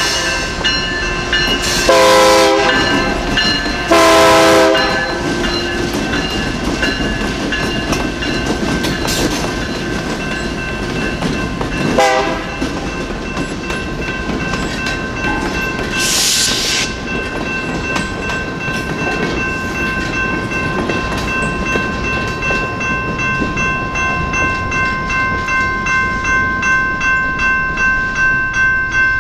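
General Signal Type 2 electronic crossing bell dinging steadily and evenly. A train horn sounds two long blasts about two and four seconds in and a short one around twelve seconds, and the train then passes with wheels clacking over the rail joints. A brief hiss comes around sixteen seconds.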